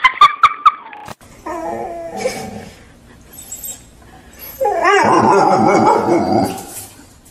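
A dog vocalizing in pitched cries: a short one a little over a second in, then a longer, louder one from about four and a half seconds in. A few sharp clicks in the first second.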